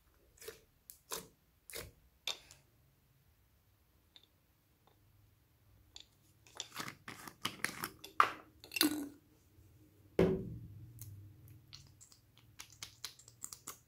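Hands squeezing and pulling slime, giving a few short sticky pops, then a run of clicks and taps from handling small plastic containers (a bottle and a lip-gloss tube), with one low thump about ten seconds in.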